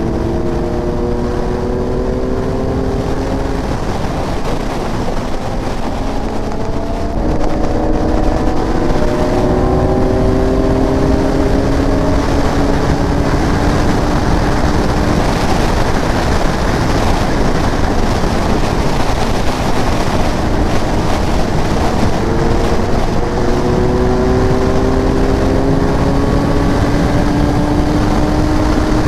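Kawasaki Ninja 1000SX inline-four engine pulling hard at very high speed, its note climbing slowly in long stretches, under a heavy rush of wind on the helmet-mounted microphone. It gets louder about seven seconds in.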